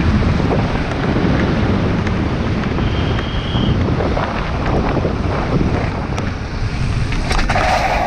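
Wind buffeting the camera microphone over the rumble of a downhill mountain bike's tyres on asphalt at speed, with frequent short rattles and clicks from the bike. A brief high-pitched tone sounds about three seconds in.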